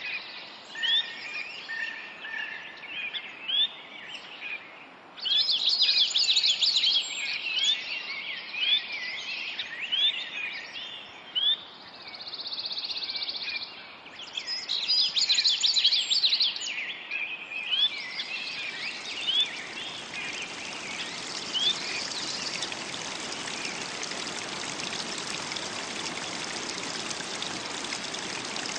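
Wild birds chirping and calling, many short rising notes, as a nature soundscape. About eighteen seconds in, a steady rush of running water fades up and takes over, with a few bird calls still over it.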